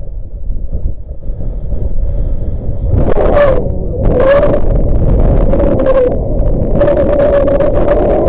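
Strong wind buffeting the microphone with a deep rumble; about three seconds in a wavering, whistling tone joins and surges on and off.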